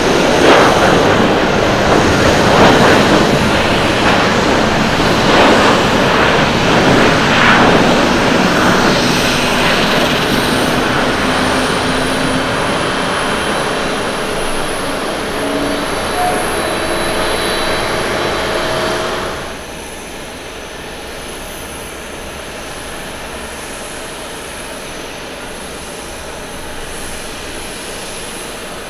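Jet engines of a Boeing 737-800 at takeoff thrust on its takeoff roll: a loud, rushing jet noise that swells and fades in waves. About two-thirds of the way through it drops suddenly to the quieter, steady jet noise of a Boeing 767 on final approach to land.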